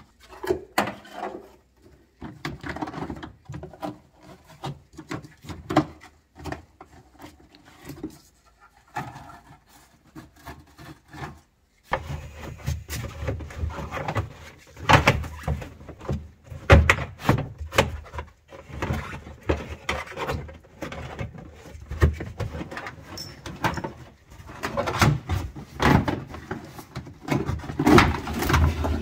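Irregular knocks, clicks and rubbing of car parts and panels being handled and pulled out while stripping an old car, sparse at first and busier and louder from about twelve seconds in.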